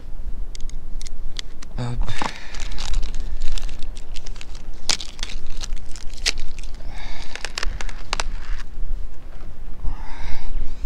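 Wind rumbling on the microphone, with scattered sharp clicks and crackles of hands handling a cable and small fittings.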